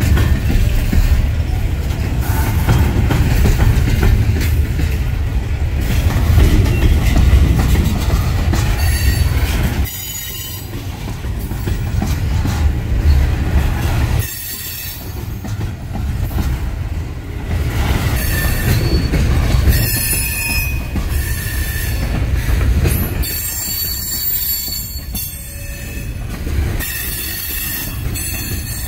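Freight train of Herzog (HZGX) cars rolling past close by: a heavy, steady rumble of wheels on rail. Thin, high wheel squeal rings out through the second half. The rumble drops abruptly about ten seconds in.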